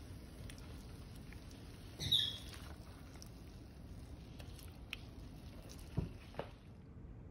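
Silicone spatula scraping in a frying pan while cooked okra is moved into a glass baking dish: a short scrape about two seconds in, then a few light knocks near the end.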